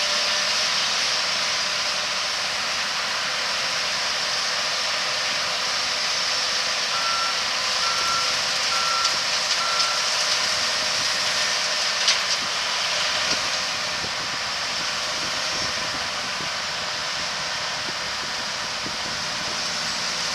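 Corn-harvesting machinery running steadily, with a backup alarm beeping four times in a row about seven seconds in. A few sharp knocks come a couple of seconds later.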